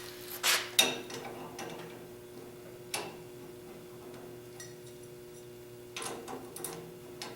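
A few sharp metallic clicks and clinks from wrenches and hand tools working on the chute cable fittings: a cluster in the first second, a single click about three seconds in, and another cluster near the end. A steady hum runs underneath.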